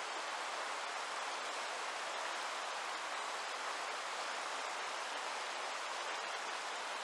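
Fast river rapids rushing steadily, an even wash of whitewater noise close around the microphone.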